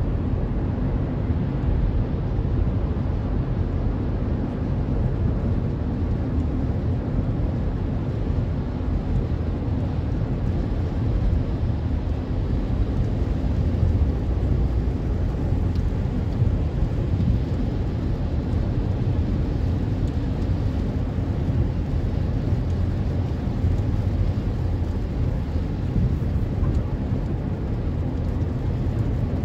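Steady low road rumble inside a car's cabin at highway speed, tyres running on wet pavement.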